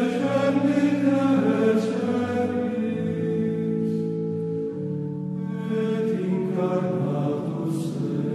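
Voices chanting sacred music in long, slowly changing held notes, several pitches sounding together like a small choir.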